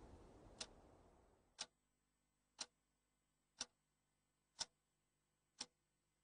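A clock ticking, one sharp tick each second, six ticks in all; a faint hiss fades away under the first two ticks, after which there is nothing but the ticks.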